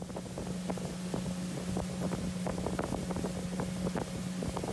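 Pontoon boat's outboard motor running at cruising speed with a steady low hum. Wind buffets the microphone, and there are frequent short, irregular knocks.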